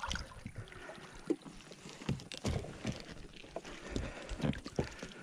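Water splashing and irregular knocks and rustles as a hooked asp is scooped into a landing net and lifted into an inflatable boat.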